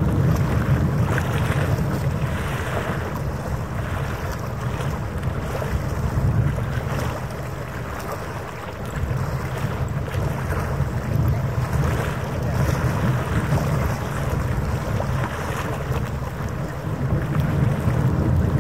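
Gusting wind buffeting the microphone with a low rumble, over the rough wash of choppy harbour water, swelling and easing.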